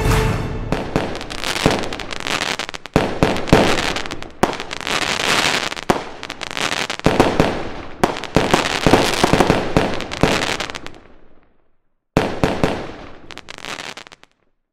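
Aerial fireworks going off: a fast, irregular run of sharp bangs from bursting shells with dense crackle between them. It dies away about eleven seconds in, then a single burst near the end sets off more crackling that fades.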